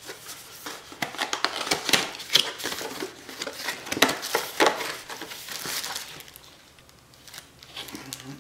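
Packaging and camera accessories being rustled and handled while a box is unpacked, with many small clicks and knocks. It dies down after about six seconds.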